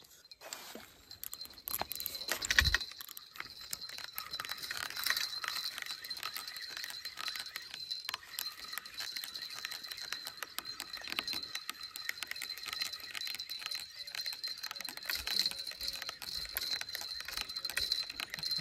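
Fishing reel being cranked to bring in a hooked fish after a bite: a dense, continuous rattle of fine rapid clicks that starts about a second in. A louder knock with a low thump comes about two and a half seconds in.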